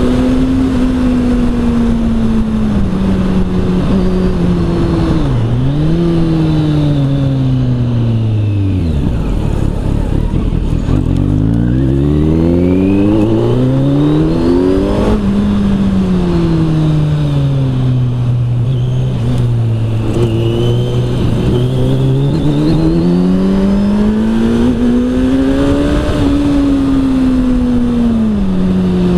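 Kawasaki Z900 inline-four with an Arrow exhaust under way: the engine note falls as the bike slows to low revs, then climbs hard through several quick upshifts, settles into a steady low note and rises and falls once more.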